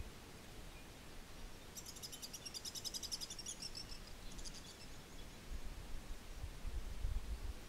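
A faint, rapid, high-pitched pulsed trill lasting about two seconds, then a shorter burst of the same, from a small animal. A low rumbling noise follows near the end.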